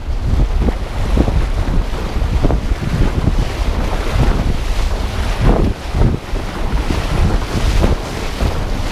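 Wind buffeting the microphone and water rushing and splashing against a windsurf board sailing fast over choppy water: a steady low rumble broken by irregular splashes.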